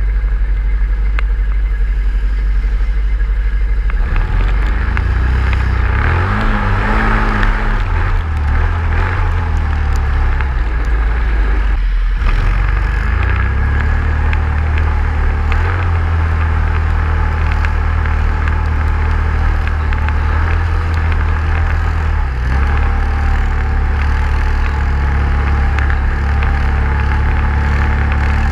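Vehicle engine running under load, its revs rising and falling a few times.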